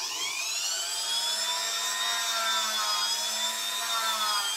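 Hand-held rotary tool with a wire brush spinning up to a high-pitched whine and running steadily. Its pitch sags slightly now and then as the brush is pressed against a model locomotive's metal wheels to scour off caked dirt.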